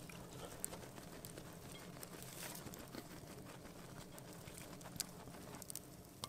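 Small wood campfire crackling with irregular sharp pops under a frying pan of hot oil, over a faint steady sizzle.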